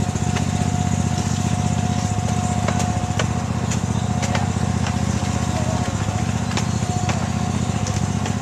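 Small engine of a miniature zoo train running steadily under way, with scattered sharp clicks over it.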